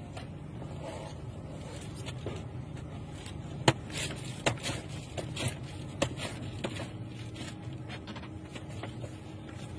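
Steady low hum inside a car standing still in traffic, with a string of sharp clicks and knocks about four to seven seconds in.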